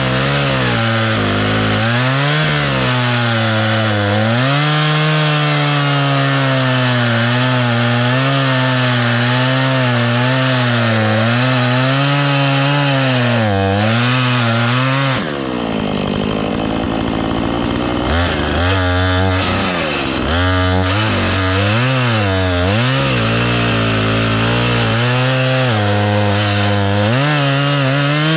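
Husqvarna two-stroke chainsaw cutting into dead elm wood, its engine pitch wavering under load, with a dull chain. About halfway through the engine briefly drops in pitch and loudness, then revs back up and carries on cutting.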